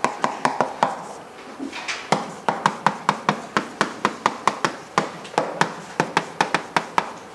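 Chalk tapping and clicking against a chalkboard while an equation is written: a quick run of sharp clicks, about three or four a second, with a brief lull about a second in.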